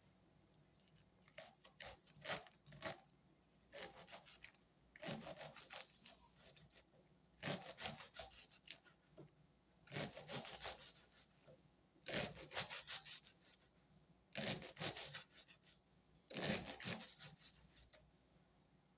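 Quiet rasping, scraping strokes from kitchen food preparation, coming in short bursts about every two seconds.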